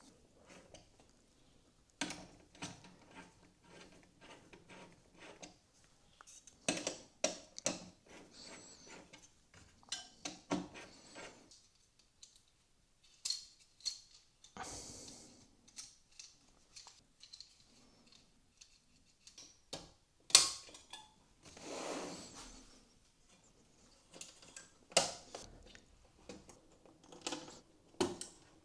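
Scattered clicks, knocks and clatter of small hard parts being handled, with a few short stretches of scraping or rustling, as computer hardware is put together.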